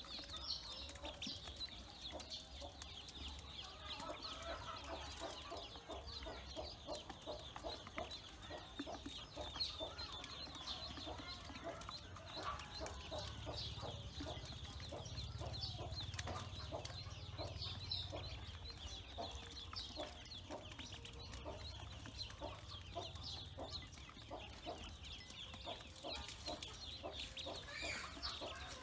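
A flock of Pekin ducklings peeping continuously, many short high-pitched peeps overlapping without a break.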